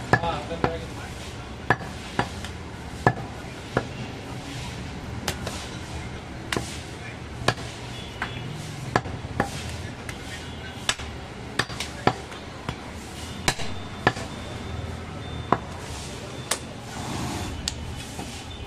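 Butcher's cleaver chopping goat meat against a wooden log chopping block: sharp knocks at irregular spacing, roughly one or two a second, stopping shortly before the end.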